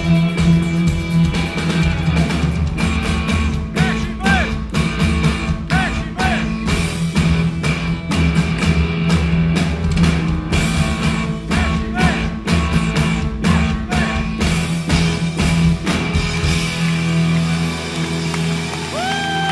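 Rock band playing live, amplified: electric guitars, bass and drums with a steady beat. About three-quarters of the way through the drums stop and the band holds a ringing final chord.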